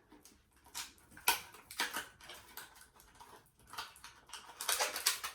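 Blind-bag packaging crinkling and rustling as it is handled and torn open: scattered crackles, then a denser burst of crinkling near the end.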